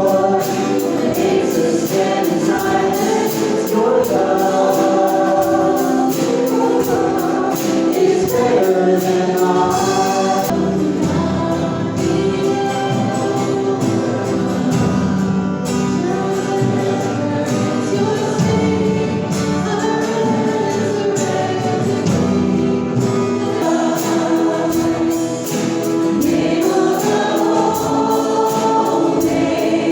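Christian worship music: a choir of voices singing with instrumental accompaniment, steady throughout.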